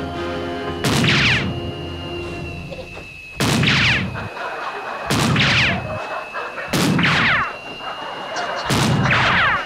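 Five pistol shots, one every two seconds or so. Each is a loud bang with a ringing tail, over a steady high-pitched whine.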